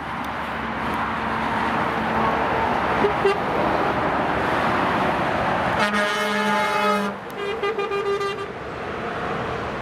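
Steady motorway traffic noise from passing trucks and cars, then a truck's air horn sounds: one long blast about six seconds in, followed by a broken run of shorter honks.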